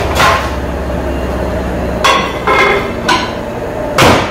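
Over-the-range microwave being loaded and set: a click, then three short beeps about half a second apart as the keypad is pressed, and a louder knock near the end.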